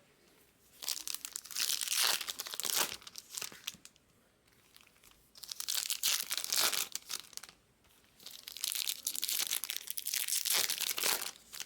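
Packaging being crinkled and handled in three bouts of a few seconds each, a dense crackling like wrapping or shrink-wrap being worked by hand.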